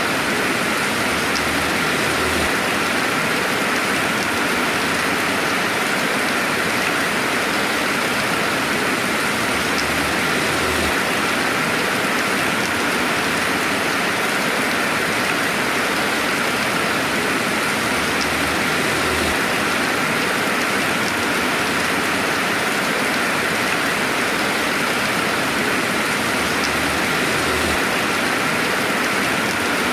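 Steady, even rainfall: a dense hiss of rain with no thunder.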